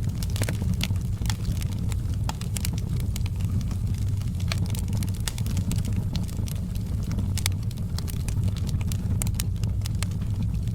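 Wood fire burning, with a steady low rumble and frequent irregular sharp crackles and pops.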